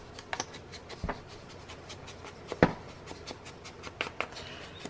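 Foam ink blending tool rubbed and dabbed along the edge of a paper strip: soft scuffing with scattered light taps, the loudest about two and a half seconds in.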